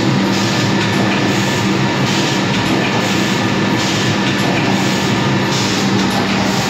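Sakurai screen printing press and its sheet conveyor running in production: a loud, steady machine hum with a brighter rushing sound that swells and fades about every 1.7 seconds.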